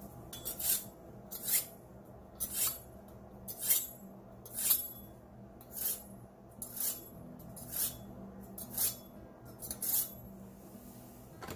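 Kitchen knife being sharpened in a hand-held sharpener: about a dozen short scraping strokes, roughly one a second, some in quick pairs.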